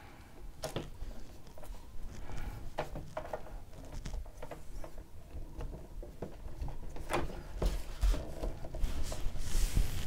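A plastic SATA power connector and its cables being handled and pushed onto the hard drive's power port. Scattered small clicks and cable rustles are heard.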